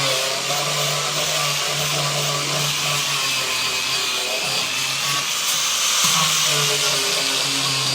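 Electric power tool running steadily on wood, its motor note dipping and shifting a few times as it works under load.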